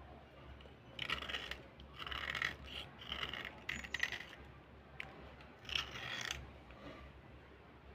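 Small knife blade scraping a slate pencil in short strokes: five separate scrapes with pauses between them.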